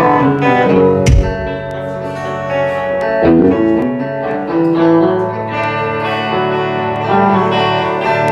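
Two Telecaster-style electric guitars playing an instrumental intro, picked melodic lines over held chords, with one low thump about a second in.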